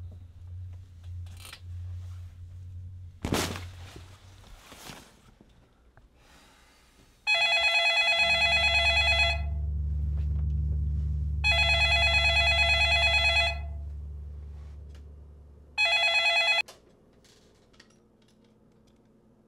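Garfield novelty telephone ringing with an electronic trill: two rings of about two seconds each, then a third that is cut short as the handset is picked up. A low steady drone sounds under the rings, and a single sharp thump comes a few seconds before them.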